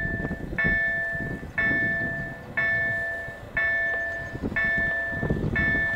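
Railway warning bell striking about once a second, each ring a bright chime that fades before the next, warning of an approaching train. A low rumble runs underneath.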